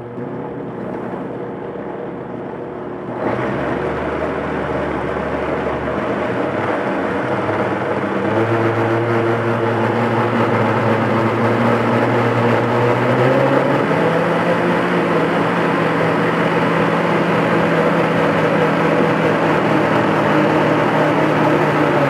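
Oster Power 1400W blender motor running under load, blending hot boiled cassava in its cooking water. Its pitch and loudness step up as the speed dial is turned higher: sharply about three seconds in, then in smaller steps twice more.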